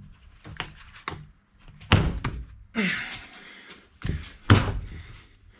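Solid rubber tire being forced by hand onto a Xiaomi M365 scooter wheel rim in a vise: a series of dull thunks and slaps. The loudest come about two seconds in and again about four and a half seconds in, with a scraping rub of rubber around three seconds in.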